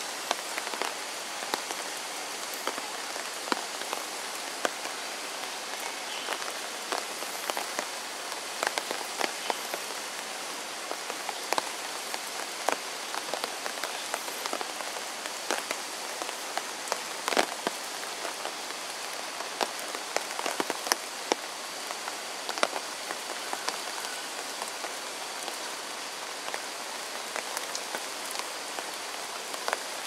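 Steady rain falling, with frequent sharp taps of single drops close by, scattered irregularly.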